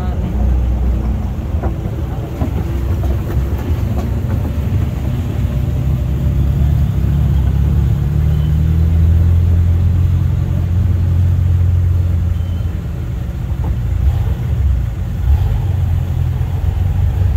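Engine of an open jeep running under way, heard from on board: a steady low rumble that grows louder for a few seconds in the middle, then eases off.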